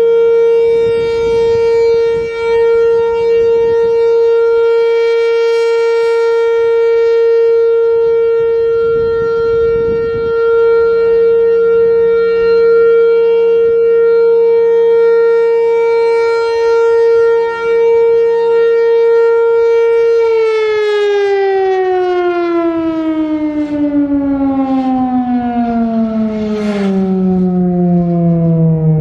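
Federal Signal Thunderbolt 1000 outdoor warning siren sounding its steady alert tone, loud, its level dipping and swelling as the rotating horn sweeps round. About two-thirds of the way through, the siren shuts off and its pitch glides steadily down as it winds down.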